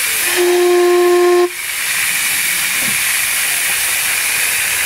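Miniature steam locomotive's whistle giving one steady blast of about a second, which cuts off sharply, over a constant hiss of escaping steam. The hiss carries on as the engine starts away with steam blowing from its cylinders.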